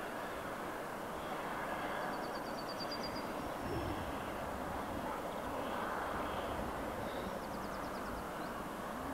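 Steady outdoor rushing noise, with two short high trills of rapid notes from a small bird, about two seconds in and again near the end.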